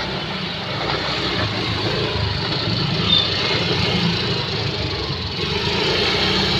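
A motor vehicle's engine running steadily, with street noise.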